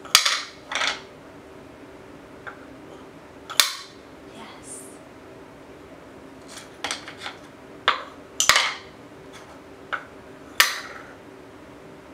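Stacking rings clacking and knocking against a wooden peg and base as a toddler handles them: about eight sharp, irregular knocks, some with a short rattle after them.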